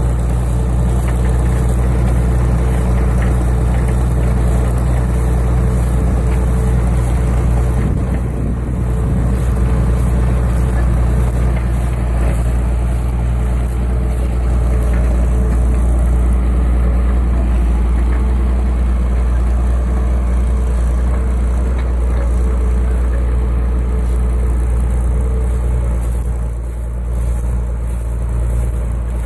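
County 1454 four-wheel-drive tractor's diesel engine running steadily under load while ploughing, with brief slight dips about a third of the way in and again near the end.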